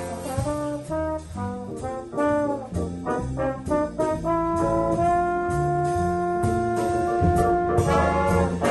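Jazz band with brass playing a funky tune: a run of short, punchy notes, then one long held note for about three seconds before the band picks up again near the end.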